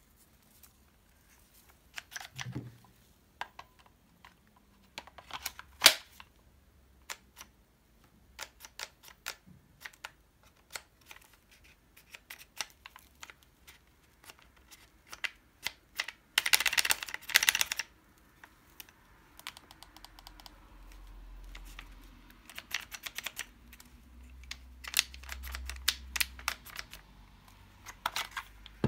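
Plastic clicks and light knocks of a Makita TD001G cordless impact driver being handled: buttons and trigger pressed and the battery pack fitted to it, with a short rattling scrape a little past halfway.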